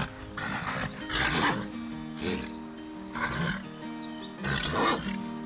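Background music of sustained notes, with about five short, harsh animal calls over it, roughly one a second.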